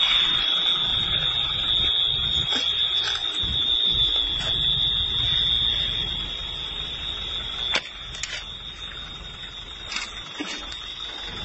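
A steady high-pitched alarm tone sounds over a low rumble of background noise, with a few sharp clicks. The rumble drops off about eight seconds in.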